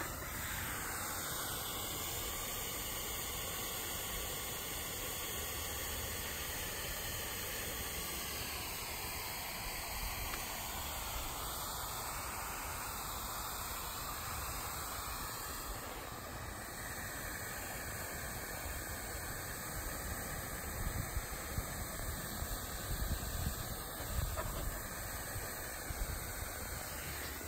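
Bee-shaped toy lawn sprinkler spraying a fine mist of water: a steady hiss, with a few low bumps near the end.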